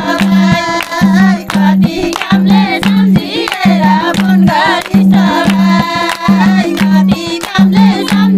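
A group of women singing a Nepali Teej folk song together, with hand-clapping and a drum beating about twice a second.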